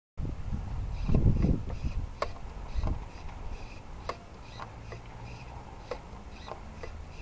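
Irregular light clicks, a dozen or so, over a low rumble. They come from an RC transmitter being worked to drive a waterproofed servo turning submerged in a glass of water.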